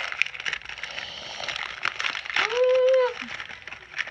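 Crinkling and crackling of a seaweed snack packet being handled, with a short high-pitched whine about two and a half seconds in that rises then falls and is the loudest sound.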